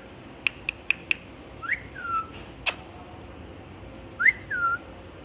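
Pet parrot whistling: two short whistles that rise and then fall, one about two seconds in and one near the end. A few quick clicks come in the first second, and a single sharp click about halfway.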